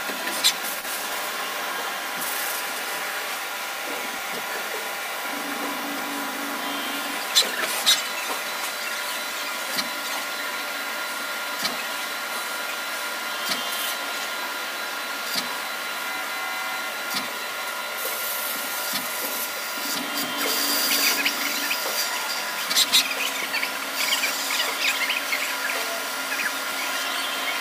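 CNC lathe turning a metal air-motor end plate: the spindle and drives run with a steady whine while the tool cuts, with scattered sharp clicks of chips. The cutting grows louder and scratchier for several seconds in the last third.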